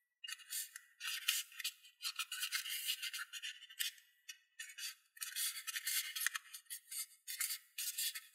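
Folded origami paper rustling and crinkling in quick, irregular bursts as fingers press and bend it into shape, with a few brief pauses.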